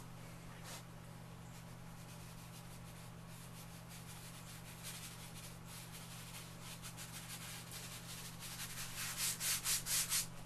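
Lecturer's chalk scratching and rubbing across bogus paper in short strokes, ending in a quick run of about half a dozen faster, louder strokes near the end. A steady low hum runs underneath.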